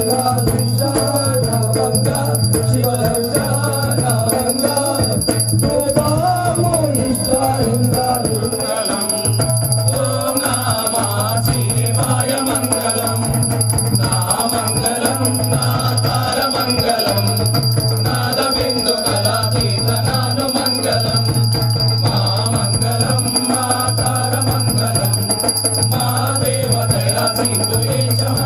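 Devotional music: a wavering melody over a steady low drone that drops out briefly now and then.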